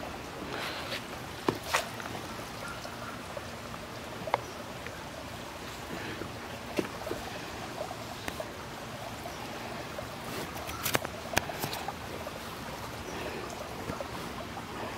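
Shallow rocky creek trickling, a steady watery hiss, with a few short sharp clicks and knocks scattered through it.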